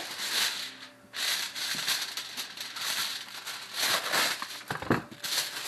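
Aluminum foil crinkling and rustling as a sheet is pulled from the roll and wrapped around a log of stuffing, in irregular bursts with a brief pause about a second in.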